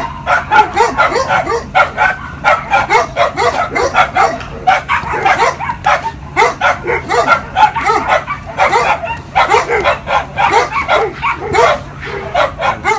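Husky-type dog vocalizing in a rapid, unbroken string of short yelps and whines that bend up and down in pitch, several a second: an excited greeting of its owner.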